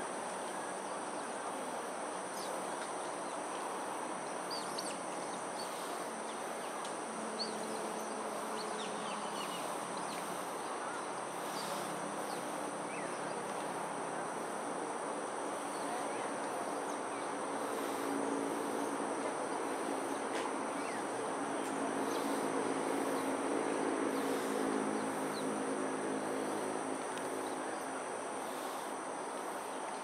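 Insects calling steadily in a high, even pitch over a broad low background hum. The low hum grows a little louder between about 18 and 26 seconds in.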